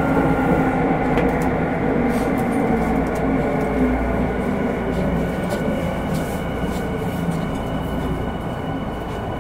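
Tokyo Metro Hanzomon Line subway train running through the tunnel, heard from inside the car: a continuous running rumble with steady motor tones that slowly gets quieter, and a thin high tone joining about halfway through.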